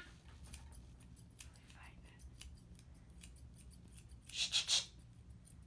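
Grooming shears snipping through a dog's leg hair: a run of light, irregular clicks. About four and a half seconds in comes a brief, louder breathy hiss in two quick pulses.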